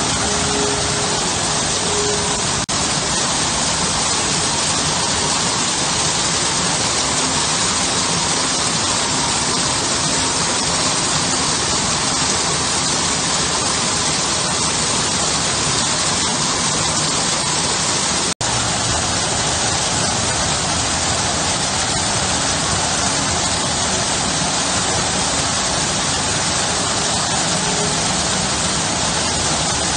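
Garden waterfall pouring over stonework into a shallow pool, a steady, even splashing of falling water, broken by a split-second dropout about two-thirds of the way through.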